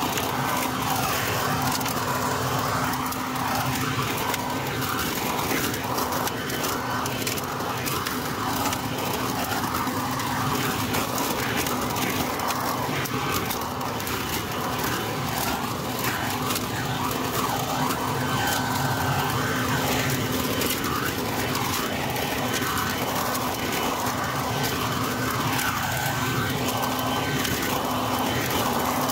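Harbor Freight Portland 12-amp electric 3-in-1 blower vacuum mulcher running steadily in vacuum mode, a constant motor and impeller drone. Wet leaves crackle as they are sucked up the tube and chopped by the mulching impeller.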